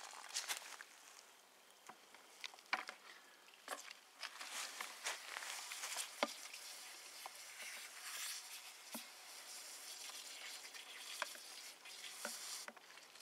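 Frothy water splashing out of a plastic bucket onto the ground at the start, then a faint crackling fizz of froth settling, scattered with small clicks and taps as the bucket is handled.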